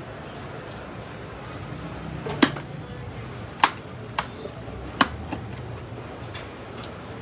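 A few sharp snapping clicks, roughly a second apart, as a motorcycle helmet's padded inner liner is unsnapped and pressed back in at its press-stud fasteners, over low shop background noise.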